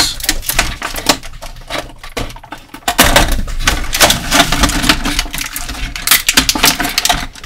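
Plastic packaging handled by hand: a steady run of small clicks, taps and crinkles as a plastic accessory is worked free.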